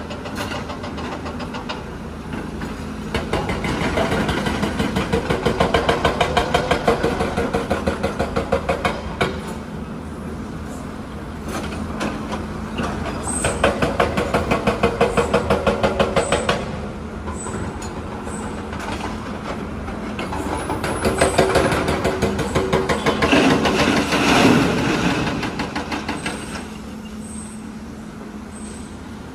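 Diesel engines of large crawler excavators (a Hyundai 290 and a Volvo EC300DL) running steadily and swelling three times into louder, quickly pulsing stretches as they work under hydraulic load while digging.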